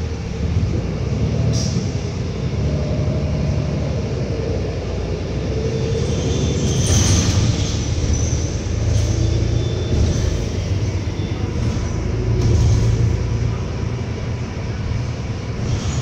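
Interior running noise of a New Flyer Xcelsior XD40 diesel city bus under way: a steady low engine and road rumble with some rattling. About seven seconds in there is a brief louder burst of clatter and hiss as the bus crosses railroad tracks.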